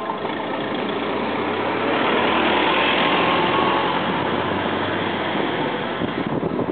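Vehicle rumble with a low hum, swelling to its loudest about three seconds in and then easing off.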